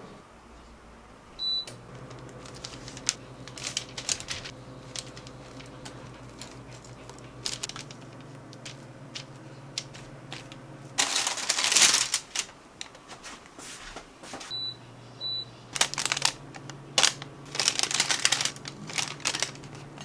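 Kitchen handling sounds: scattered clicks and clatter of utensils and packaging. A short electronic beep about a second and a half in starts a steady low appliance hum, which stops around the middle; two more beeps near 15 seconds start it again. Louder bursts of clatter come around 11 to 12 seconds and 16 to 19 seconds.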